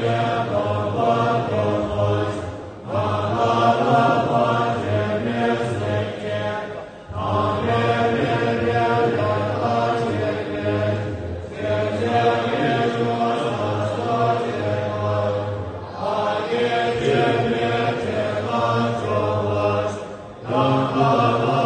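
A large assembly of Tibetan Buddhist monks chanting prayers together in deep voices, in long phrases broken by short pauses about every four or five seconds.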